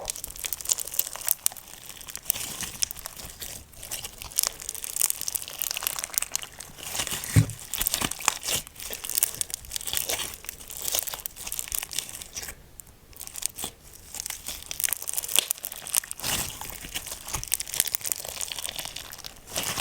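Slime being squeezed and stretched by hand, giving a continuous run of fast crackling and popping clicks, with a single low thump about seven seconds in.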